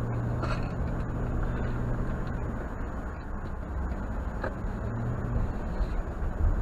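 Inside a moving vehicle's cabin: steady engine and tyre-on-road rumble while driving. A low engine hum is present at first, fades after a couple of seconds, and comes back briefly near the end.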